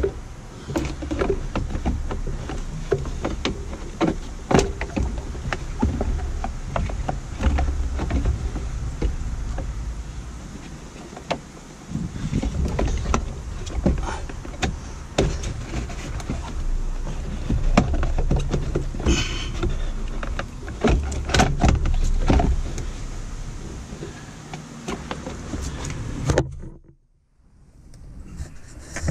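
Hands working the plastic heater blower housing and wiring under a car's dashboard: scattered clicks, knocks and scrapes, with rubbing and bumping on the microphone. Near the end the sound drops away for about a second.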